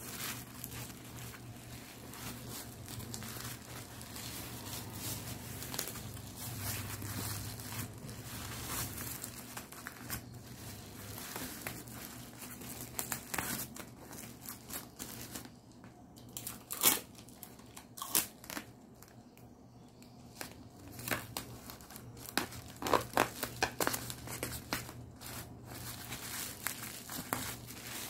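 Black plastic bubble wrap crinkling and rustling as it is folded and pressed around a package, with scattered sharp crackles. The crackles are loudest about halfway through and in a cluster a few seconds later.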